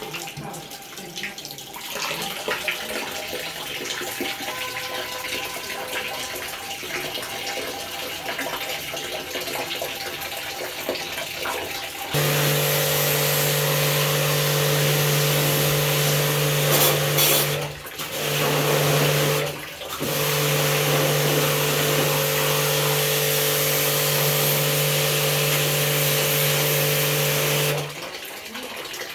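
Water running and splashing. About twelve seconds in, an electric high-pressure water jet pump starts with a steady hum under the hiss of its spray. It cuts out briefly twice, then stops near the end, as the trigger is let go.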